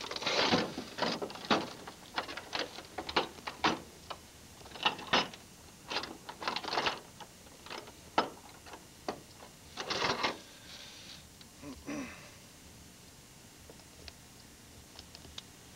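Irregular metallic clicks and clinks of a steel muskrat trap and its chain being handled against a metal boat's gunwale, most of them in the first ten seconds or so, then fewer and fainter.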